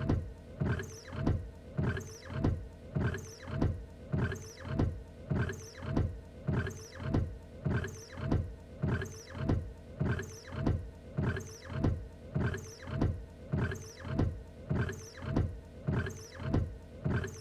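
Car windshield wipers sweeping back and forth across the glass at a steady pace, about three strokes every two seconds, each pass a swish of the blades with the wiper motor driving it.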